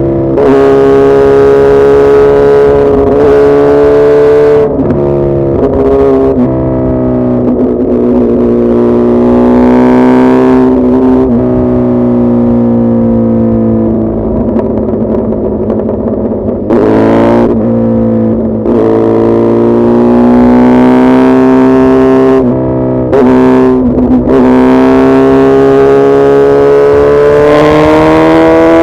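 Suzuki Hayabusa Gen3's 1340 cc inline-four engine running on the move. Its pitch slowly sinks and climbs, with several short breaks where it drops off and picks up again, and it climbs steadily near the end.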